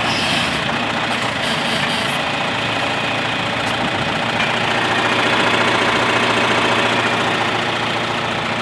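John Deere farm tractor's diesel engine running steadily, heard from behind at the rear hitch; it gets a little louder about four seconds in.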